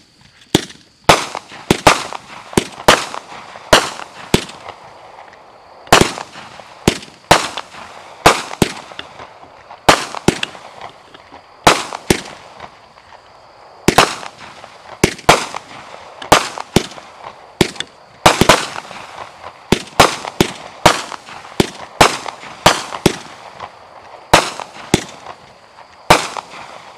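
Imperial Dragon 'Kung Fu' 200-gram, 20-shot consumer firework cake firing: a steady run of sharp bangs, one or two a second, each trailing off in echo, as the tubes lift and burst their red and green coconut stars with white strobe. The bangs stop near the end.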